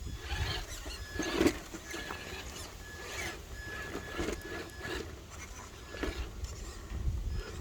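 1/10-scale RC rock crawler working over rocks: the electric motor and gears whine in short on-off bursts, with the tires scrabbling and crunching on rock.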